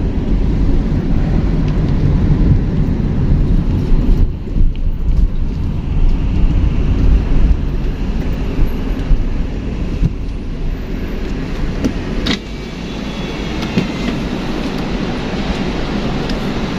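Trucks and other traffic passing close on a road with a steady heavy rumble; a sharp click about twelve seconds in.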